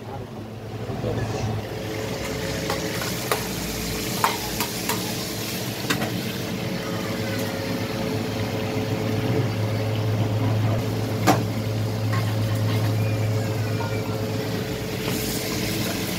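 Mutton sizzling in a pressure cooker, with a few sharp metal clicks and clinks from the cooker lid and a stirring spoon, over a steady low hum.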